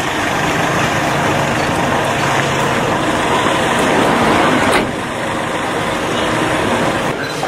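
A motor vehicle's engine running with a steady low hum under loud outdoor noise, with one sharp click about five seconds in.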